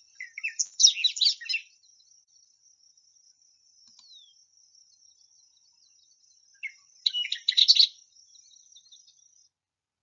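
Bobolink singing: two bursts of rapid, high, warbling notes that sound like a short-circuited R2-D2, one near the start and one about seven seconds in, with a faint steady high hiss behind.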